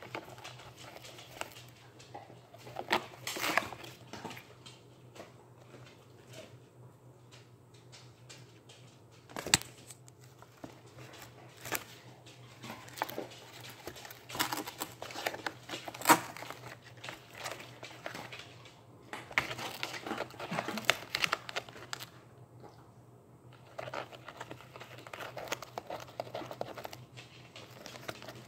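Kitten chewing and pawing at the torn edge of a cardboard box from inside, giving irregular bouts of crinkling and tearing cardboard with a few sharp knocks.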